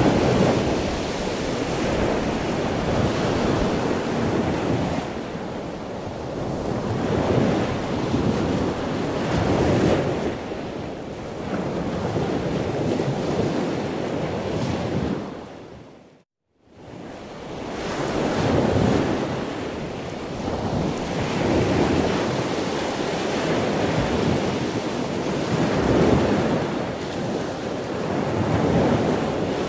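Ocean surf: waves washing in and drawing back in slow swells every few seconds. About halfway through, the sound fades to silence and swells back up within a second.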